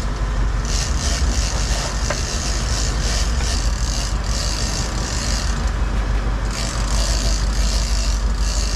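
Fishing boat's engine running steadily under way, a deep rumble, with a high hiss that comes and goes every second or so.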